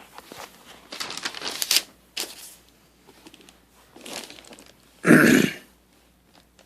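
Crinkling, rustling handling noises close to the microphone, then one short loud cough about five seconds in.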